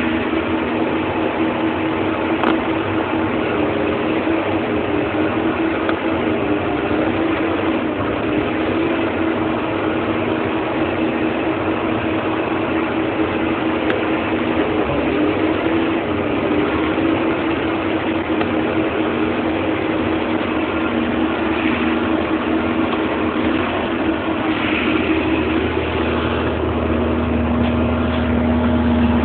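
John Deere 8520 tractor's six-cylinder diesel engine running steadily. Near the end the note deepens and grows a little louder.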